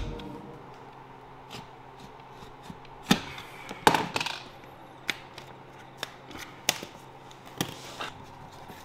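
Scattered taps and knocks from a flooring plank being scored with a utility knife and handled on a plywood subfloor, with a short scraping rasp about four seconds in.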